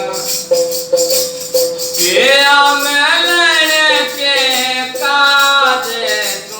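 Devotional bhajan music: a steady sustained-tone instrumental accompaniment with rhythmic shaker and tambourine. From about two seconds in, a voice sings one long held note that bends up and down and fades before the end.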